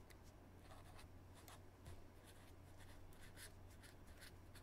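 Faint scratching of a pen writing on paper: a quick, irregular series of short strokes as a word is written out, over a low steady hum.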